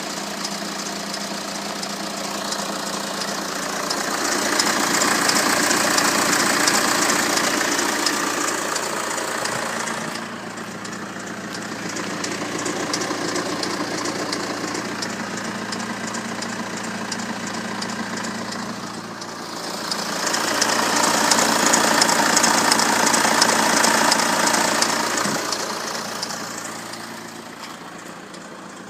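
BMW N47 2.0-litre four-cylinder diesel running at idle with a fast metallic rattle over the diesel clatter. It grows louder twice for several seconds. The owner takes the rattle for the known N47 timing chain fault.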